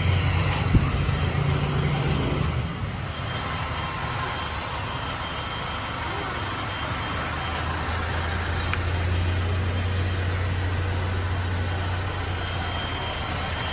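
Handheld electric heat gun running, a steady rush of blown air over a low hum.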